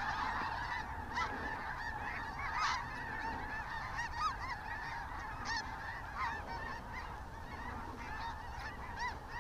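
A large flock of snow geese calling overhead: a dense, unbroken chorus of many overlapping high-pitched honks.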